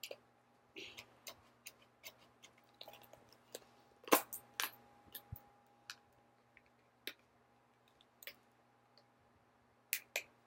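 Irregular small clicks and taps of a taped plastic toy box being handled and picked open, the loudest a little after four seconds in.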